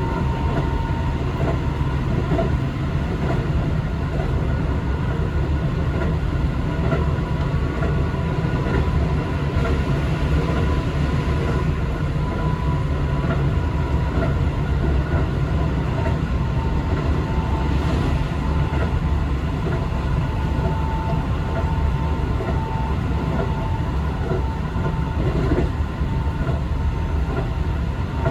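Keio Liner commuter train running at speed, heard from inside the carriage: a steady low rumble of wheels on rail with a thin steady whine above it.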